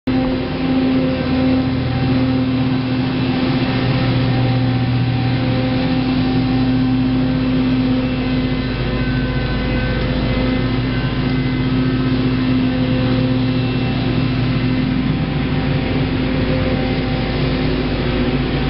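Petrol engine of a lawn-care machine running steadily at an even pitch, a constant loud drone with no let-up.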